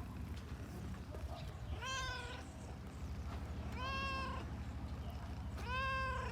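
A cat meowing three times, each meow about half a second long and rising then falling in pitch, roughly two seconds apart, over a low steady rumble.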